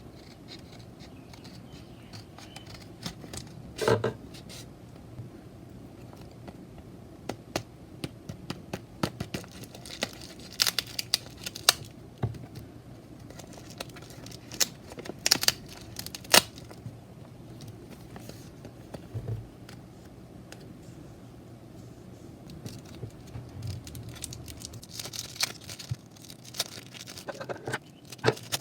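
Packaging being handled and opened: scattered crinkling and tearing with small sharp taps and clicks, loudest in a cluster of snaps around the middle.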